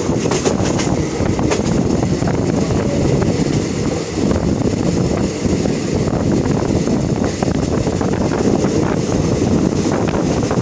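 Passenger train running along the track, heard from inside a carriage: a steady, loud rumble of wheels on rails, with wind noise on the microphone.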